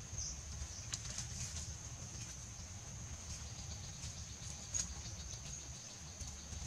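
Steady high-pitched insect drone of the forest over a low rumble, with a few faint clicks and knocks as bamboo poles are handled and tied, the sharpest about a second in and near five seconds.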